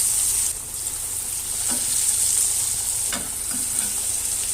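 Falafel patties frying in hot oil: a steady high sizzle that drops a little in level about half a second in, with a couple of faint light clicks later on.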